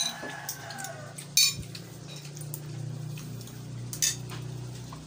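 Sharp, ringing clinks of glassware and dishes: one at the start, one about a second and a half in, and one about four seconds in, over a steady low hum.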